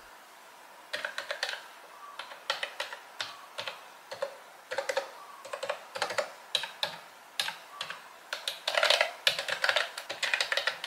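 Typing on a white Mofii Candy wireless keyboard with round retro keycaps: an irregular clatter of key clicks that starts about a second in and quickens into a denser, louder run near the end.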